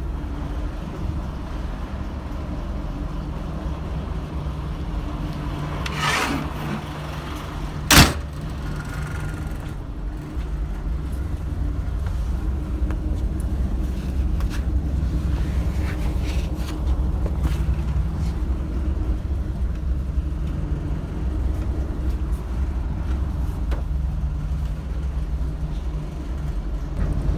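Class 121 'Bubble Car' diesel railcar's underfloor diesel engines running steadily, heard from on board. About six seconds in comes a short hiss, then a single sharp bang at about eight seconds, and the engine note grows a little louder after about ten seconds.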